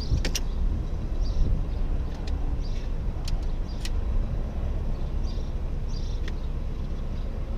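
Metal poles of a folding camp chair frame clacking against each other and clicking into the hub as the frame is opened out: a few sharp clicks with some rustling, over a steady low rumble.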